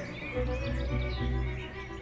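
Background music with a low, repeating bass line, with birds chirping and singing over it.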